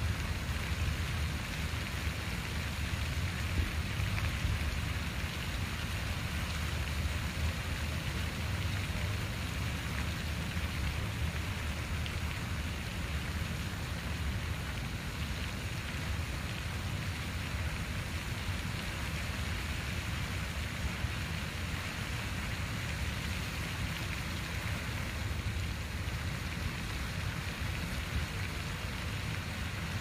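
Water fountain splashing: a steady, even patter of falling water with a low rumble underneath.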